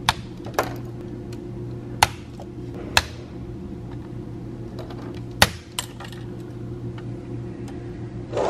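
Sharp plastic clicks as gauge needles are pried up off their shafts on a BMW instrument cluster with plastic spoons. There are about six separate clicks spread over several seconds, the loudest a pair just past the middle, over a steady background hum.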